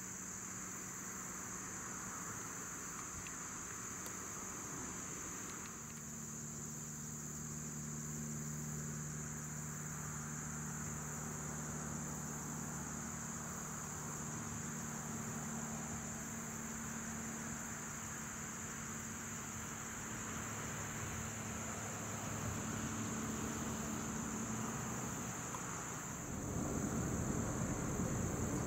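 Crickets trilling steadily and high over the distant low, steady hum of a diesel locomotive engine, which sets in about a fifth of the way through. Near the end a louder low rumble takes over.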